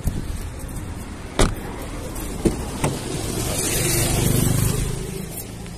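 A motorcycle passing close by, its engine swelling to a peak about four seconds in and then fading. A few sharp knocks come before it.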